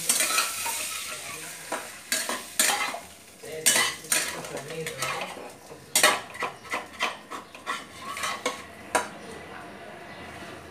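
Slotted steel spatula scraping and clinking irregularly against a kadai (wok) while stirring cauliflower frying in oil, over a steady sizzle that is loudest at the start and eases off over the first few seconds.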